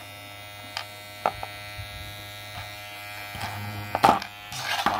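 Kemei KM-1986 hair clipper running with a steady electric buzz. A couple of clicks come about a second in, and louder handling knocks and rubbing come near the end as it is moved.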